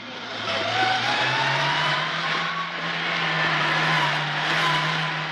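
Small car's engine, a Fiat 600, pulling away and running on steadily as it follows a running boy. The hum steps up in pitch about a second in, with a faint rising whine over it.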